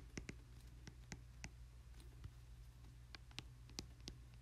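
Faint, irregular clicks of a stylus tapping on a tablet screen during handwriting, several a second, over a low steady hum.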